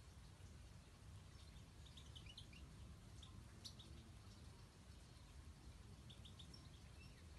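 Faint short chirps and twitters of European goldfinches in a few scattered bursts, with a short falling note near the end, over a low steady background rumble.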